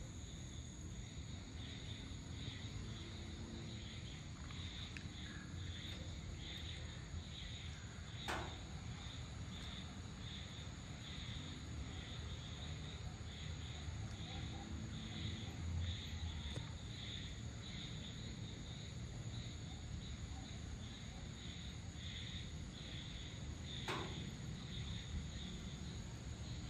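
Crickets and other dusk insects chirping: a high chirp pulsing a few times a second over a steady thin high tone, with a low rumble underneath. Two brief sharp clicks, about eight seconds in and near the end.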